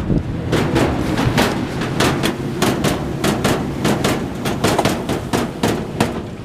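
Washing machine banging and knocking hard over and over, a few irregular knocks a second over a steady low rumble, as it struggles with a load of pillows.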